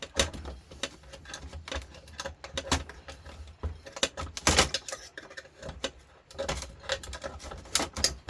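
Irregular clicking, tapping and knocking of hand tools on the metal and plastic parts of a George Foreman grill being taken apart, with a heavier knock about four and a half seconds in.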